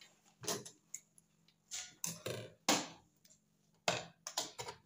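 Butterfly sewing machine stitching a seam in short stop-start runs, its mechanism clicking and clacking a few strokes at a time with brief pauses between.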